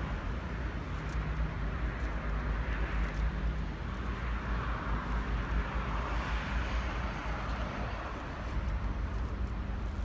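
Wind buffeting a phone microphone on an open quay, a heavy uneven rumble, over a faint steady engine hum in the first few seconds and a light wash of distant outdoor noise.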